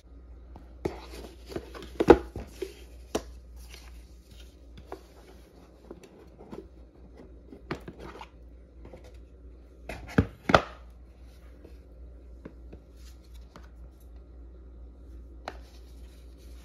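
Scattered taps and knocks of a rigid cardboard gift box being handled and opened on a table, with softer handling noise between them. The loudest knock comes about two seconds in, and two more come close together around ten seconds in.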